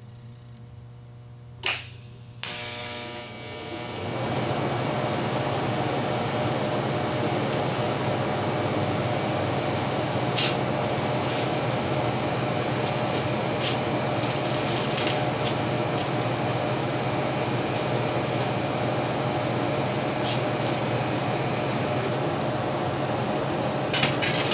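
TIG welding arc on a silicone bronze puddle, at about 86 amps: a click about two seconds in, then the arc strikes and runs as a steady buzzing hiss for about twenty seconds, stopping near the end. The puddle is close to bubbling over at that current.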